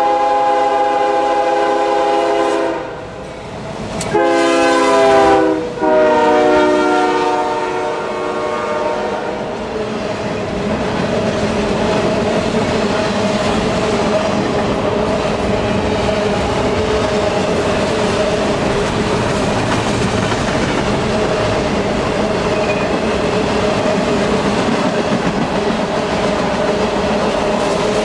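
Freight train's locomotive air horn sounding a long blast and then a second one, its pitch dropping as the lead GE diesel locomotives pass. This gives way to the steady rumble and clickety-clack of a long train of container cars and refrigerated boxcars rolling by.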